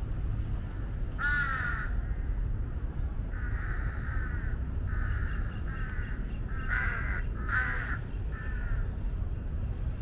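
Jungle crows cawing: about seven harsh, rasping caws, one about a second in and a run from about three seconds on. These are the parent crows protesting as a monitor lizard eats their fallen chick. A steady low rumble lies underneath.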